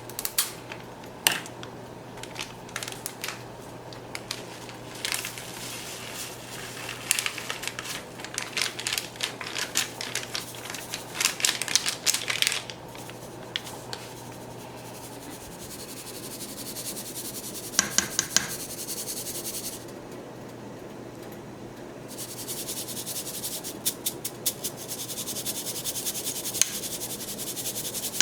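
A packet of Maggi soup mix being handled and the dry mix sieved to hold back its little noodles: crinkling, scratching and clicking, with a run of quick taps near the end.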